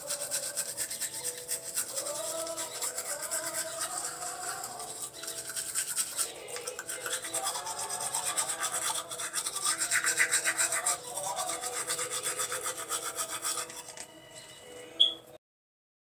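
Toothbrush scrubbing rapidly back and forth on teeth, a fast rasping that cuts off suddenly near the end.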